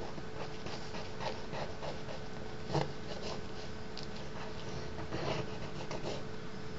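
Short scratching strokes of an ink drawing tool on paper, with a few louder taps and scrapes among them, over a steady faint hum.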